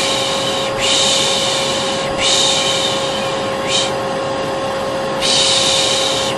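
A person making a long soothing "shh" again and again, about five times in a few seconds, over a vacuum cleaner's steady hum with a constant whine. It is a baby-calming shush played over vacuum noise.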